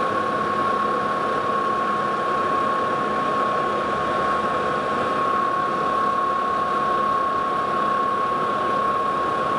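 Metal lathe drilling with a 2-inch twist drill at reduced spindle speed, the drill cutting with a steady high-pitched whine over the running machine. The drill is stepping up straight from a 1-inch hole, too big a jump for it to cut well, so an in-between size is called for.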